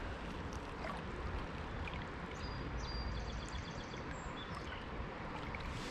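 Steady rushing noise of the river flowing past the bank, with a low rumble underneath and a faint high chirping about halfway through.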